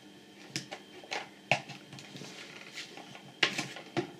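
A handful of sharp plastic clicks and knocks as a mains lead is fitted into the socket at the base of an Oxford Maximiser 3800 battery charger. The loudest come about a second and a half and three and a half seconds in.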